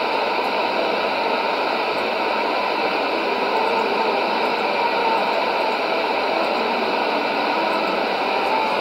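Sony ICF-2001D shortwave receiver tuned to 6160 kHz AM, giving a steady hiss of static and band noise with no programme audible.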